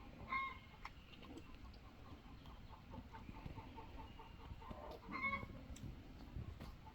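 Faint bird calls: two short pitched calls about five seconds apart, with a quick series of soft notes between them.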